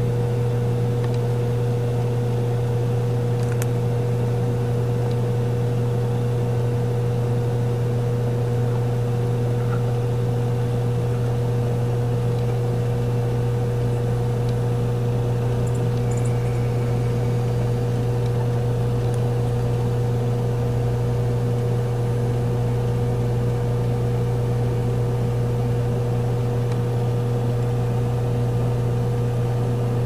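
Steady low mechanical hum with a fixed higher tone above it, unchanging in level and pitch.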